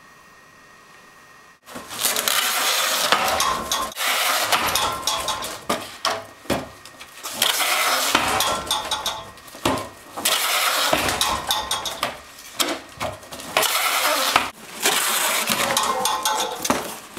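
Packing tape pulling off the roll of a box-sealing tape dispenser as boxes are pushed through it. The noise comes in repeated loud bursts of one to two seconds each, starting about a second and a half in.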